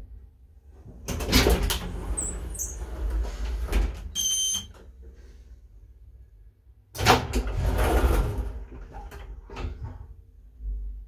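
Elevator car's automatic sliding doors running open and then shut, each pass a few seconds of rolling, scraping noise with a couple of high squeaks in the first. A short electronic beep sounds at the end of the first pass.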